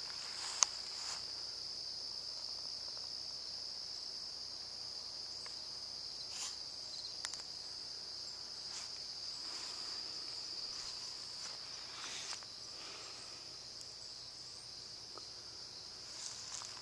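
Steady, unbroken chorus of evening crickets, high-pitched, with a sharp click about half a second in and a few faint rustles.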